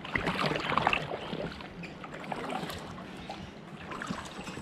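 Kayak paddle blades dipping and pulling through calm canal water: splashes and drips from the strokes, loudest in about the first second, then lighter trickling.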